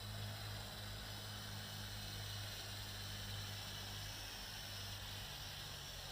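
JXD 509 toy quadcopter's motors and propellers buzzing in flight at some distance: a steady, faint whine that wavers slightly in pitch over a hiss. A low steady hum runs beneath it and shifts about five seconds in.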